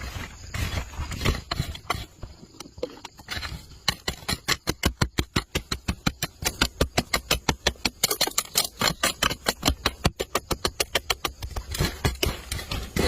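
A few irregular knocks, then from about four seconds in a fast, even series of sharp knocks, about six a second, that stops near the end.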